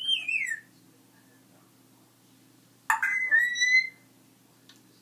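African grey parrot whistling twice: a short whistle falling in pitch, then about three seconds in a sharp-starting whistle held on one pitch for about a second.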